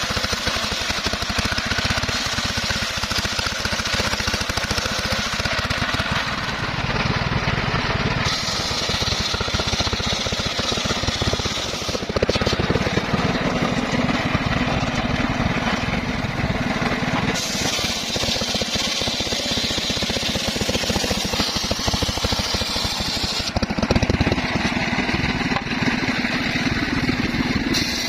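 Engine-driven circular saw running continuously while cutting timber. A steady engine chug sits under the saw's noise, and the higher saw sound changes character abruptly several times.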